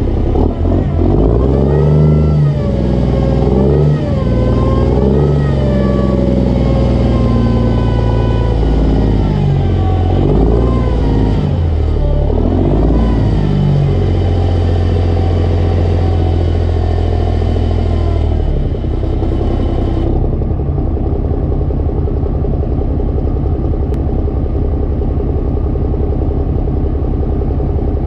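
Straight-piped Cummins diesel of a Kenworth C500 winch truck revving up and down unevenly for about fourteen seconds. It then holds a steady speed and drops back to a steady idle about nineteen seconds in.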